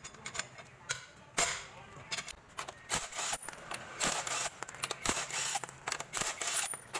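Cordless impact wrench taking the lug nuts off a car wheel: a run of sharp metallic clicks and clinks from the tool, socket and nuts, coming thicker from about the middle on.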